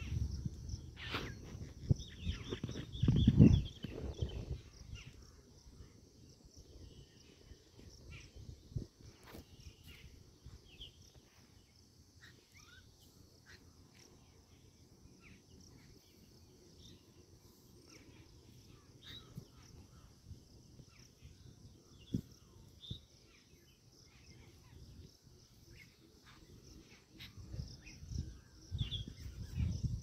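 Jungle babblers giving scattered short, sharp calls, over a steady high insect drone. A loud low rumble about three seconds in and again near the end.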